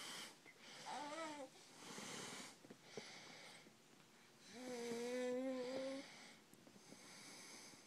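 A person's noisy, snore-like breathing, a breath about every two seconds. One breath about five seconds in carries a steady voiced drone. A short rising-and-falling vocal sound comes about a second in.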